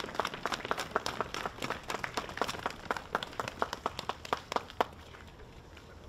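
Small crowd applauding, each clap sharp and distinct, dying away about five seconds in.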